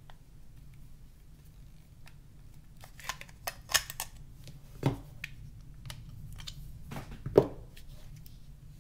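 Back cover of a Nokia N91 phone being slid off and handled: scattered sharp clicks and knocks, a cluster about three to five seconds in and another about seven seconds in, the loudest then.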